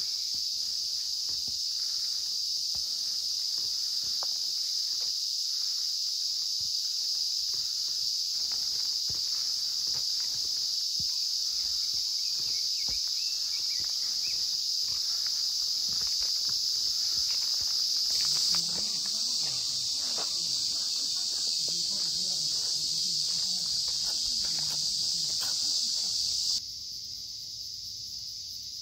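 Steady high-pitched drone of summer cicadas, with footsteps along the trail underneath. It drops in level near the end.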